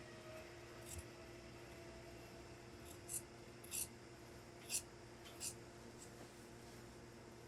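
Tailor's shears cutting coat fabric: about six short, quiet snips at uneven intervals, over a faint steady hum.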